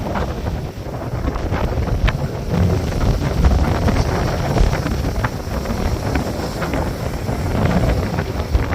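Strong wind buffeting the microphone over the rush of rough hurricane surf breaking on the beach, the wind rumble the loudest part throughout.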